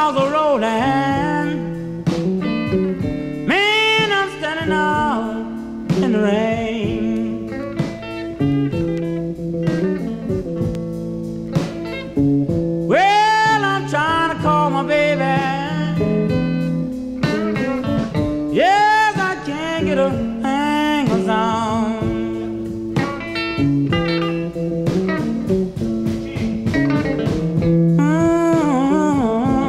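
Blues record playing back from a vinyl LP in mono: guitar accompaniment under a lead line of long notes that bend up and fall away.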